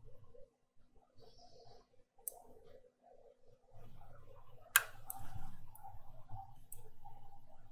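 Small clicks of metal tweezers against a laptop motherboard as the power-button pins are bridged to switch the board on. The loudest is a single sharp click a little under five seconds in, with a few lighter ticks after it.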